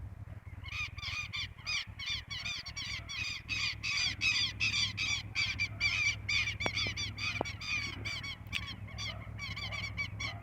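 A flock of birds calling harshly and without pause, many short calls overlapping several times a second, with a steady low hum underneath and a few faint clicks in the middle.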